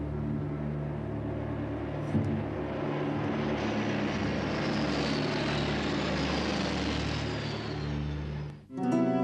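Propeller engines of a formation of World War II bomber aircraft droning, swelling as they pass overhead with a thin falling whine, then cutting off suddenly near the end.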